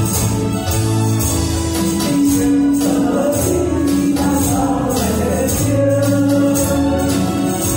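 A woman sings through a microphone and PA over a recorded backing track. The group accompanies her on hand-held percussion such as tambourines or shakers, keeping a steady jingling beat.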